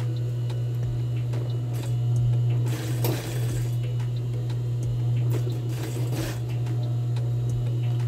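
Industrial sewing machine's motor humming steadily, with two brief noisy bursts about three and six seconds in.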